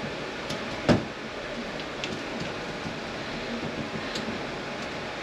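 One sharp knock about a second in, then a few faint clicks and taps over steady background noise: manual-transmission parts being handled on the workbench during teardown.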